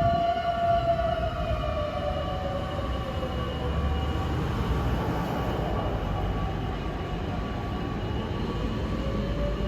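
Fire engine siren wailing. Its pitch slowly falls over the first few seconds, holds low, then climbs again near the end, over a low vehicle rumble.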